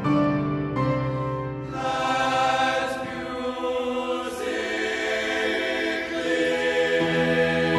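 Men's choir of teenage voices singing a sustained choral passage with piano accompaniment, the sound growing fuller about two seconds in.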